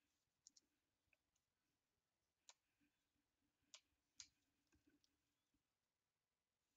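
Near silence with a few faint, sharp clicks and ticks, typical of trading cards and their plastic sleeves being handled.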